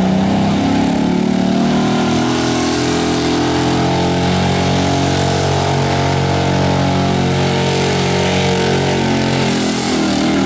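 Pickup truck engine running hard and steady at high revs, under load as the truck drags a weight-transfer sled down a pulling track.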